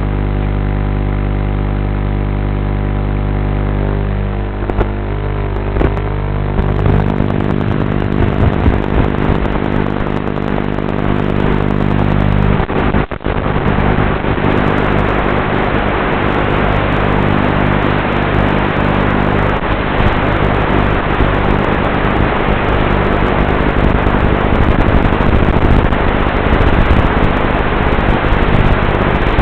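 Walkera F210 racing quadcopter's brushless motors and propellers: a steady hum while it sits on the ground, turning a few seconds in into a louder, noisier buzzing drone as it takes off and flies fast and low.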